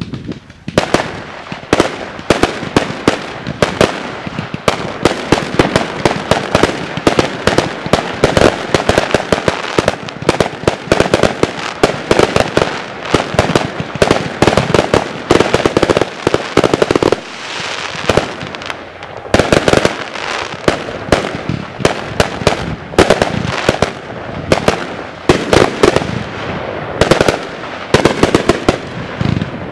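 Fireworks barrage: a rapid string of launch thumps and bursting bangs with crackle, several a second, pausing briefly a little past halfway before firing starts again.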